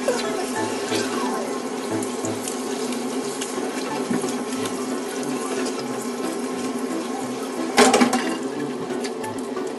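Water from a handheld shower sprayer running steadily onto a wet Yorkshire terrier in a stainless-steel grooming tub, with a short, louder burst about eight seconds in.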